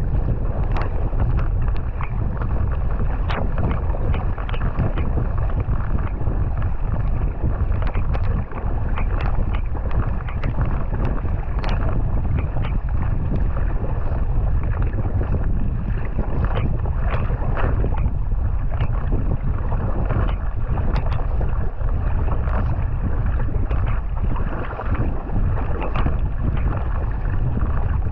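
Double-bladed paddle strokes splashing into the water beside a racing kayak, over a steady rush of water along the hull and heavy wind noise on the microphone.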